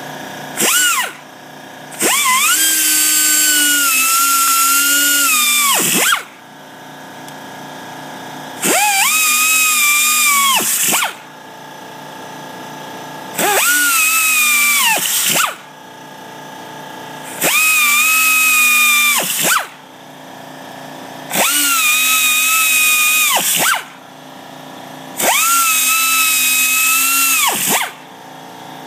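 Pneumatic right-angle air grinder with a track drill bit boring holes through a rubber snowmobile track, whining with a hiss of air in about seven separate bursts of two to four seconds. Each burst spins up, sags slightly in pitch as the bit bites into the rubber, and winds down as the trigger is released.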